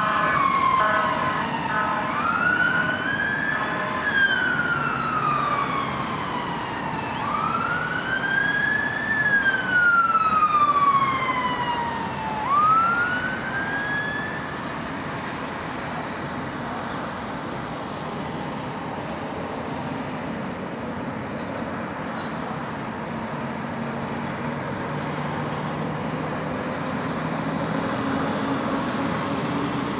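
Emergency vehicle siren wailing in slow rising and falling sweeps, a rapid pulsing tone at the start, then stopping about halfway through and leaving steady road traffic noise.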